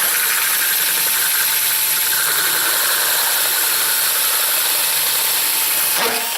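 Power drill running the DeWalt door lock cutter as it bores through the last small piece of a wooden door, a steady grinding whir that starts abruptly and cuts off near the end as the cut is finished.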